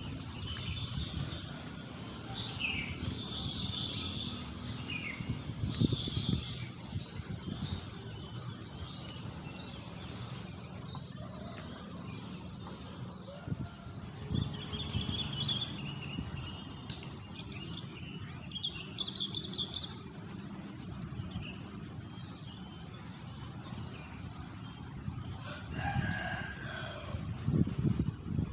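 Wild birds chirping and singing, with short high chirps repeating throughout and bursts of warbling song. A rooster crows near the end. A few low rumbles, about six seconds in and again near the end, are the loudest moments.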